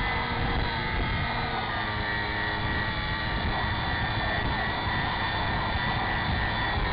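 RC model airplane's motor and propeller running in steady flight, heard from a camera mounted on the plane: a steady whine that drifts slightly in pitch, over the rush of wind on the microphone.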